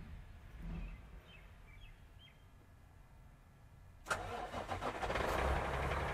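Truck's diesel engine starting about four seconds in: an uneven second as it catches, then running steadily at idle.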